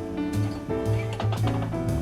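Background music: sustained melodic notes over a moving bass line, with percussion hits.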